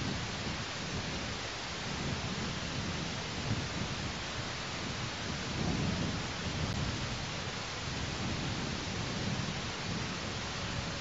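Wind buffeting an outdoor nest-camera microphone high in a tree: a steady rushing hiss with low rumbling gusts that swell and fade every second or two.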